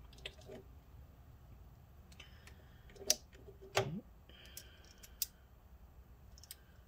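Faint scattered clicks and taps of small metal tools being handled as a precision screwdriver bit is swapped for another Torx T4 bit, with a brief soft scrape about four seconds in.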